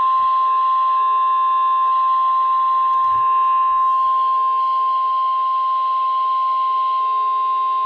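NOAA Weather Radio warning alarm tone: a single steady 1,050 Hz beep held without a break, over faint receiver hiss. It is the attention signal that a new weather warning is about to be broadcast.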